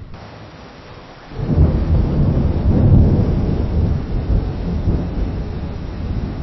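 Distant thunder rumbling: after a second of faint hiss, a long low rumble swells up, is loudest about three seconds in, then rolls on more softly.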